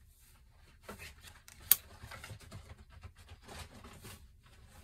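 Tarot cards being handled: light rustling and scraping, with one sharp tap a little under two seconds in.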